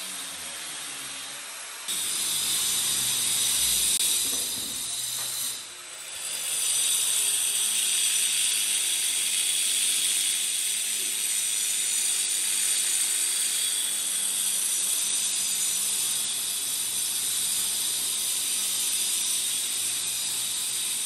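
Handheld power cutter cutting into a masonry wall: a steady, harsh hiss that dips briefly twice in the first six seconds, then runs on evenly.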